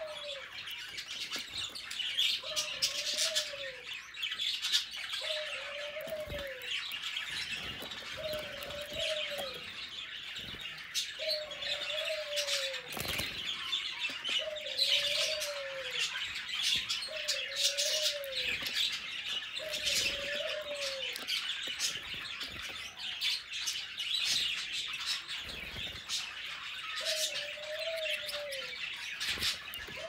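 Canaries chirping and twittering continuously in high, rapid notes, with a separate lower call that rises and falls, about a second long, repeated roughly every two seconds. A few soft knocks come through as well.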